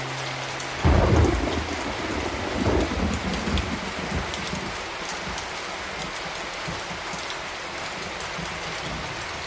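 Thunder: a loud rumble breaks about a second in, rolls on with a second swell near three seconds, then fades. Steady rain hiss runs underneath.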